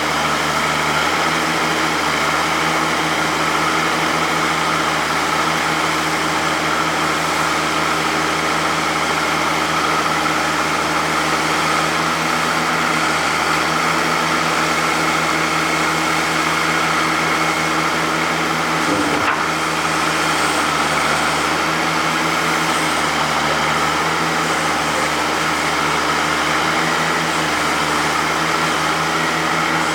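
Oliver 88 backhoe tractor's six-cylinder engine running steadily at an even speed, with one brief knock about two-thirds of the way through.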